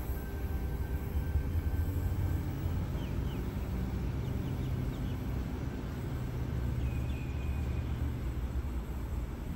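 Sydney Trains Tangara electric multiple unit pulling out of the station, with a steady low rumble of wheels and traction running as it moves away along the track.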